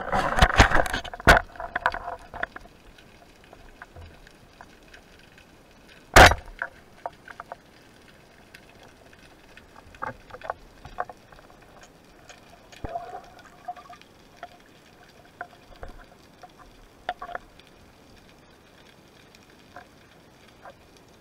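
Underwater noise picked up by a speargun-mounted camera: a rush of water and handling noise at first, then one sharp, loud crack about six seconds in, followed by scattered small clicks and knocks.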